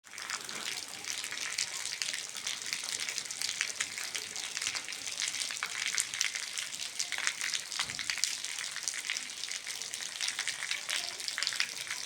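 Heavy rain falling, a dense steady patter of many drops.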